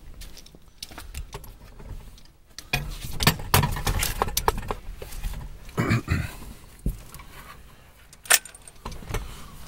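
Irregular clicks, knocks and light metallic clinks of close handling noise, with one sharp click about eight seconds in.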